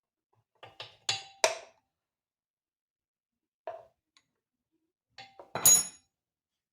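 Metal hand tools and engine hardware clinking and clattering against metal. There are four sharp clinks about a second in, one near the middle, and a louder cluster near the end whose last strike rings briefly.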